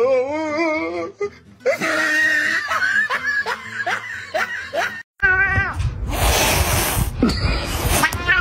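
A cat yowling and meowing, mixed with people laughing and talking. About five seconds in, the sound cuts abruptly to loud rumbling and rustling with a short falling cry.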